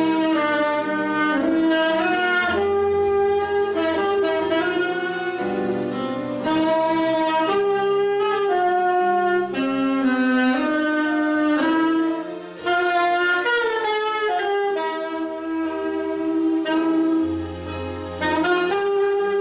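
Alto saxophone playing a flowing melody over an electronic keyboard accompaniment of chords and held low bass notes. The music dips briefly about two-thirds of the way in.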